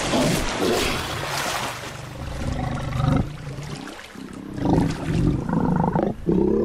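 Cartoon sound effects of crocodiles growling several times over churning, splashing water.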